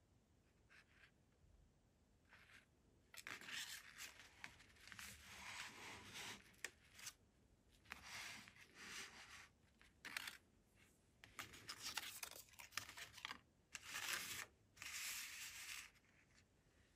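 Handling noise as polymer pistols are slid and set down on a flat surface, with the cardboard tags on their trigger guards rustling. It comes as a string of short, irregular scrapes and rustles that start about three seconds in and stop shortly before the end.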